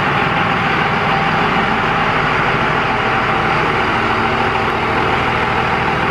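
Second-gen Ram 2500's 5.9 L Cummins inline-six turbodiesel running steadily at low revs, loud and even throughout.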